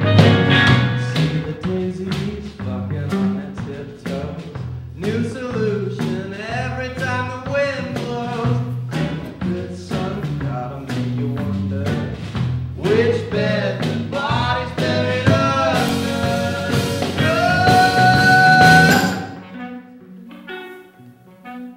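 A band playing a bluesy, jazz-tinged song, with drums, a walking bass and a sung melody on top. About 19 seconds in, the full band drops away and a much quieter, sparser passage follows.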